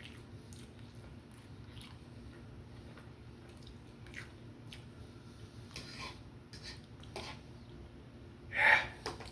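A person chewing food close to the microphone: soft scattered mouth clicks and wet smacks, with one louder short sound about eight and a half seconds in.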